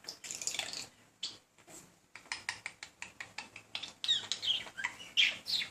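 Male budgerigar chattering: a fast run of dry clicks and short chirps, then warbling sliding whistles in the last second or so. A male's warble aimed at a female budgie, a courtship chatter.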